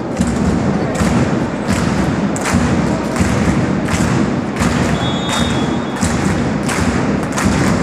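Spectators beating out a steady rhythm, about three beats every two seconds, over a continuous crowd hum in the hall.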